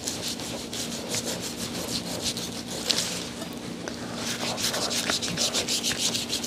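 A knife sawing back and forth through raw beef sirloin, a run of quick, repeated rasping strokes.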